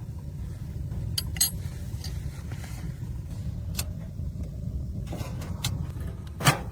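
Blizzard wind buffeting the microphone as a steady low rumble, with a few scattered knocks and clicks, the loudest near the end.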